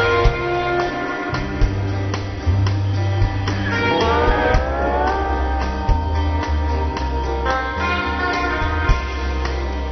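Live band playing an instrumental passage: electric guitar and bass over drums, with steady drum hits. About four seconds in, a note slides upward in pitch.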